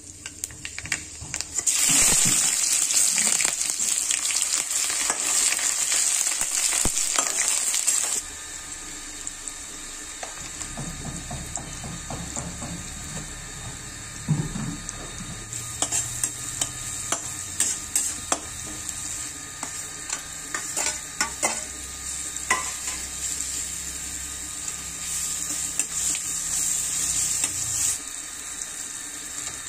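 Oil sizzling in a metal wok as black pepper and sliced onions fry. The sizzle is loud for the first several seconds and drops suddenly about eight seconds in to a quieter frying hiss. Through the later part a spatula scrapes and clinks against the wok as the onions are stirred.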